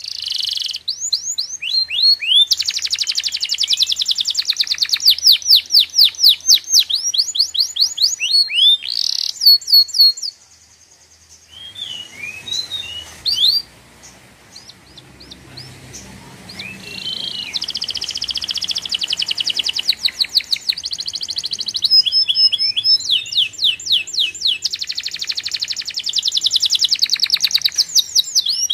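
A songbird singing in fast, evenly repeated chirps and trills. The song breaks off for several seconds near the middle, then resumes.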